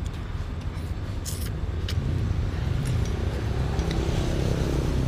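A road vehicle passing, its low engine rumble building from about two seconds in, with a few short clicks early on.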